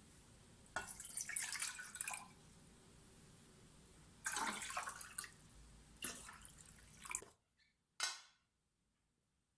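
Kitchen tap running into a sink, with three louder stretches of splashing as something is rinsed under the stream; the water is shut off about seven seconds in, followed by a single sharp knock.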